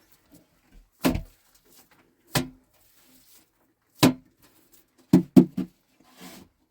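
Sharp knocks, as of a hard object striking: three single blows about a second and a half apart, then three quick ones in a row near the end.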